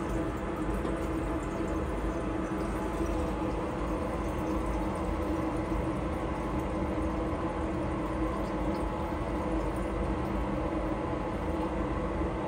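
Steady mechanical hum with a constant low drone, under acetonitrile being poured from a glass bottle into a glass graduated cylinder.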